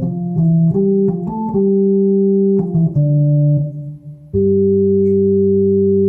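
Roland VR-09 drawbar organ voice with the 16', 8' and 4' drawbars pulled, playing a short phrase of notes and chords, then a long held chord from a little past four seconds.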